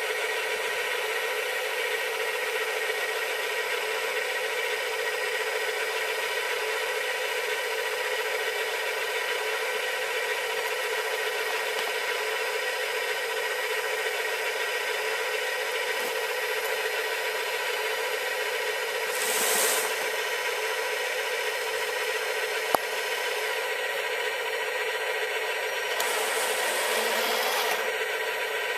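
Radio-controlled model dump truck's hydraulic pump running with a steady, many-toned whine as the tipper bed raises. Short scraping rushes come about two-thirds of the way through and again near the end, with a single click between them.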